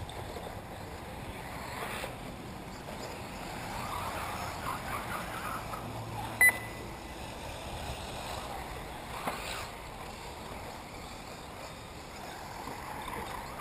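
Electric 1/8-scale RC off-road buggies running on a dirt track, heard as a wavering whine and tyre noise that grows a few seconds in and fades again. About six and a half seconds in there is a single sharp click with a brief high beep, the loudest sound.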